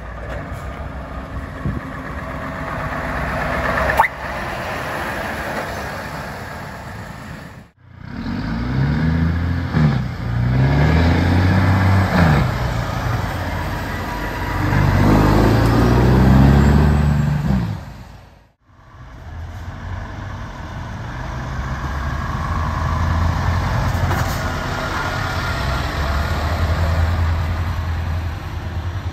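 Diesel engines of heavy semi-truck tractor units driving past close by, in three separate clips: a truck approaching and getting louder, with a sharp click about four seconds in; a truck revving up and down several times as it passes; then a steady engine as a truck pulls away.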